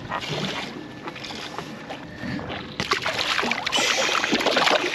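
Water splashing and slapping at the surface beside the boat hull, starting about three seconds in and getting louder, as an inflated puffer fish is released and thrashes at the surface; before that, water lapping and wind on the microphone.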